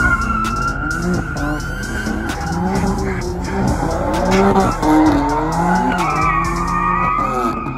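Cars drifting on a wet skid pan: tyres squealing steadily while the engines rev up and down, loudest about halfway through.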